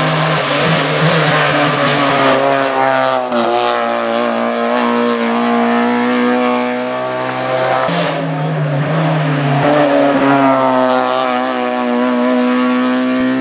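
Racing car engine at full throttle, its note climbing under acceleration and dropping sharply twice, about three and eight seconds in, as it changes gear.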